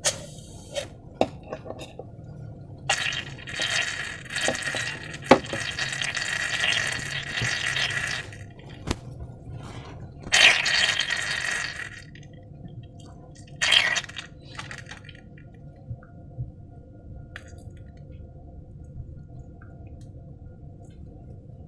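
Wet, liquid sounds of slime being mixed and handled, in three stretches, a long one and two shorter ones, with small clicks and taps in between.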